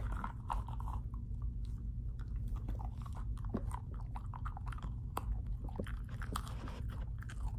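Dapple dachshund chewing and biting, a fast irregular run of small crunching clicks, as he works at a treat or its packaging to get it open. A steady low hum runs underneath.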